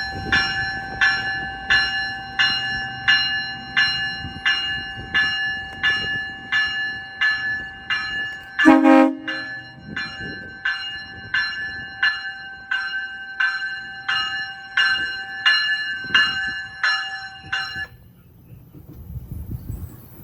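GO Transit locomotive's bell ringing steadily at about two strokes a second as the train departs, stopping about eighteen seconds in. A short horn blast sounds about nine seconds in, the loudest moment, over the low rumble of the locomotive.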